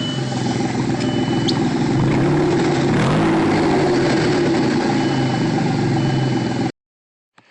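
Car engine running loudly through a leaking exhaust, with a broken muffler and tailpipe joint blowing out; the revs rise and fall slightly. A thin high tone comes and goes, and the sound cuts off abruptly near the end.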